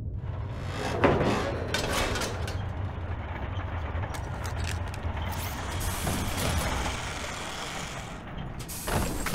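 Machine sound effects for a rusty animated excavator robot: a steady low motor rumble under a run of metallic clanks and clicks from its moving arm and joints, with the loudest clank about a second in.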